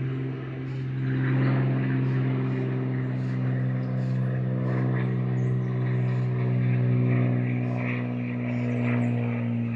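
A steady low mechanical hum, as from an engine or motor running at constant speed, with a stack of even overtones. Faint high ticks recur about twice a second above it.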